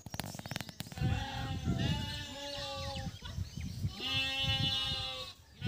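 Goats bleating: long, drawn-out bleats, one stretch about a second in and another about four seconds in.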